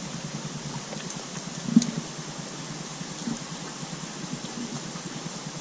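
Steady low hum and hiss with faint scattered ticks, broken by one sharp knock a little under two seconds in.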